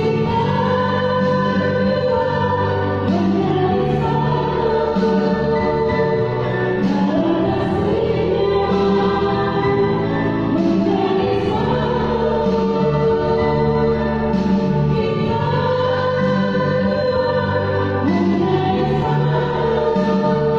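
Virtual choir, separately recorded voices mixed together, singing in several parts with long held notes that change every few seconds.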